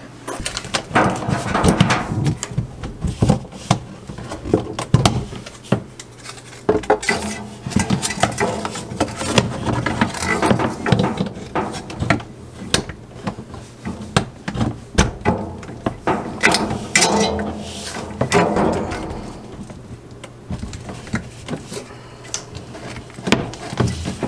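Irregular clicks, knocks and rustling as a flat plastic Sleek Socket plug and power cords are handled and plugged into a wall outlet and into the extension's three-outlet end.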